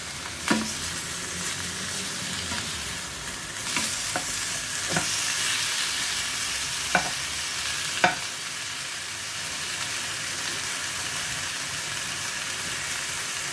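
Pork chunks browning in a little hot oil in a nonstick pan, sizzling steadily. Several sharp knocks come in the first half as the pieces are turned with a spatula.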